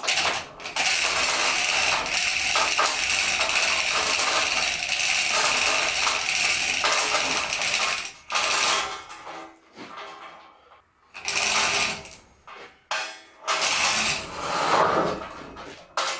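Chain block and tackle ratcheting, its chain rattling through the block as it hoists a heavy steel plate. The rattle runs steadily for about seven seconds, then comes in shorter pulls with pauses between.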